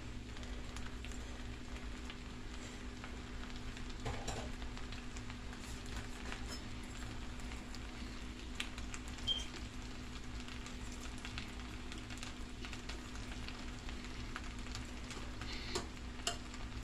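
A metal spoon stirs and scrapes through pasta with meatballs and sausage in a frying pan, with a few sharp clicks of spoon on pan and a faint sizzle of the food cooking, over a low steady hum.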